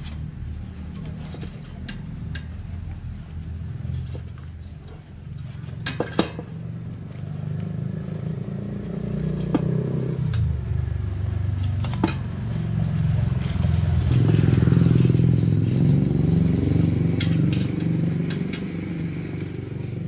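A small engine running steadily, its low hum growing louder about two thirds of the way in. A few sharp clicks and knocks come from the tire and inner tube being worked on the rim.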